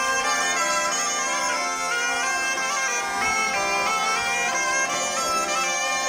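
Zampogna, the southern Italian bagpipe, playing a folk tune with a small wooden shawm, the melody notes moving over a steady, unbroken drone.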